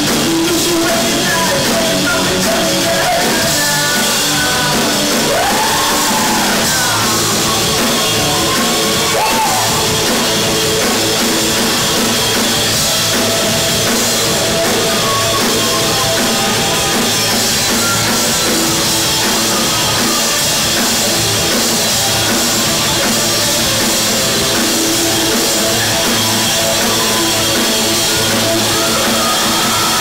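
A live rock band playing loud, with a drum kit and electric guitars under a male singer.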